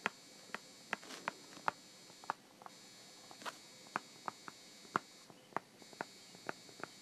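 Stylus tip tapping and clicking on a tablet screen during handwriting: sharp, irregular ticks about three a second, over a faint steady electrical hum.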